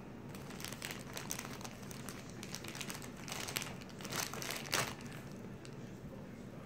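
Plastic marshmallow bag crinkling as a hand reaches into it and pulls out a marshmallow: a run of soft crackles, loudest about four to five seconds in.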